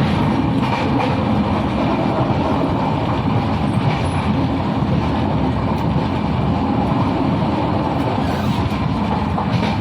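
Moving passenger train: the steady running noise of wheels on rails and the coach rattling.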